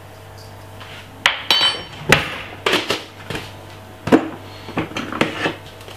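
Metal spoon clinking and knocking against a stainless steel mixing bowl: a sharp ringing clink about a second in, then about half a dozen more separate knocks and clinks.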